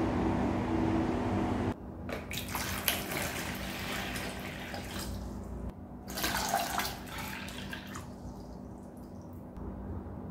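Water poured from a measuring cup into a plastic bowl, splashing in two pours, the second stopping about eight seconds in. It is preceded by a steady low hum that cuts off abruptly about two seconds in.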